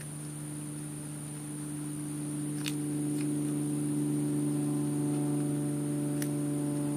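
Steady low machine hum that grows louder about three seconds in and picks up more overtones, with a faint high whine over it and a few short, faint clicks.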